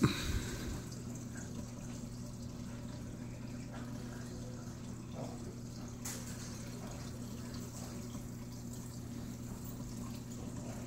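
Aquarium sump filtration running: water trickling and dripping through a homemade trickle-tower filter, with a steady low hum underneath. A brief knock right at the start.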